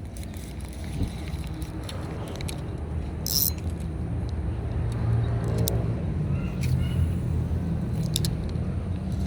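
An engine running steadily, a low hum that grows a little stronger about four seconds in, with metallic jingling and scattered clicks on top.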